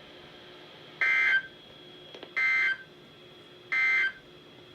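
Three short, buzzy digital data bursts about 1.4 s apart: the NOAA Weather Radio SAME end-of-message (NNNN) code sent at the close of the Required Weekly Test.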